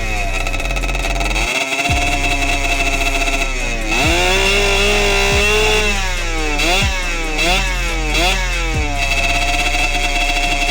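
Derbi DRD Pro's 70cc two-stroke single-cylinder engine revving hard, its pitch climbing and dropping again and again and held high a few times. A music bass line runs underneath.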